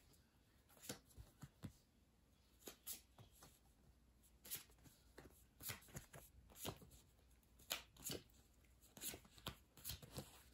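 Tarot cards being dealt onto a fabric bedspread: a faint, irregular run of short card snaps and taps as they are drawn and laid down.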